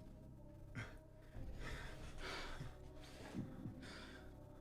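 Soft breathing: several quiet breaths in and out.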